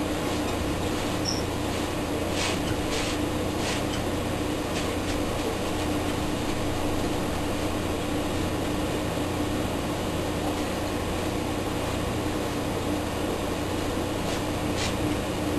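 Steady low hum and hiss of background machine noise, unchanging throughout, with a few faint soft swishes about two to four seconds in and again near the end.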